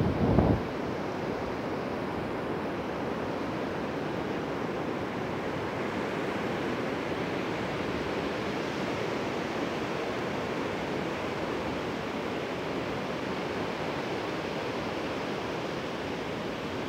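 Rough, stormy surf breaking on a sandy beach: a steady, even wash of waves. A brief low rumble right at the start.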